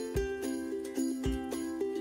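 Background music: a light chiming melody over a low beat that lands about once a second.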